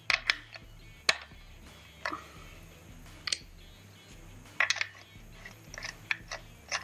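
A dozen or so scattered, irregular metallic clicks and taps as a tool works loose the lock nut on the clutch push-rod adjuster of a Suzuki GS750, over a low steady hum.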